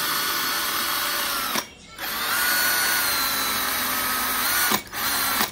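Chinese-made Makita-branded 18 V cordless drill spinning its bit freely with no load, the motor whining steadily. The trigger is released about a second and a half in and squeezed again a moment later, the whine rising as it spins up. Near the end it stops and starts once more.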